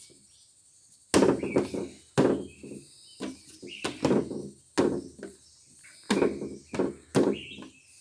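A martial artist working through a Dragon-style kung fu form: a run of sharp, forceful sounds, about one every second, each fading within half a second.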